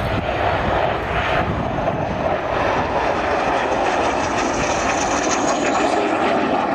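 Jet engine of a CAC Sabre fighter in a display flypast: a steady, loud rushing roar, with a high whine rising in pitch near the end as it comes past.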